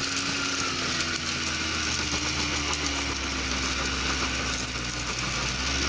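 Suzuki Jimny's engine pulling steadily uphill, its pitch wavering slightly, under a constant metallic jingling clatter of tyre chains.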